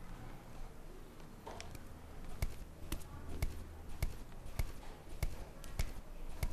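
Footsteps climbing wooden stairs: a run of sharp, evenly paced knocks, about two a second, starting a couple of seconds in, over a low steady hum.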